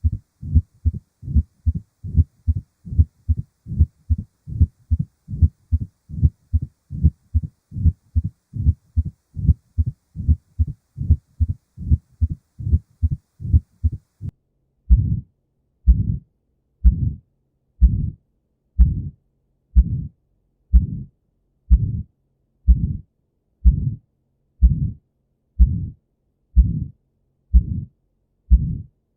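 Recorded abnormal heart sounds: quick, regular low thumps, about three a second, then after a short break about halfway through, slower and longer beats about once a second with a faint hum between them.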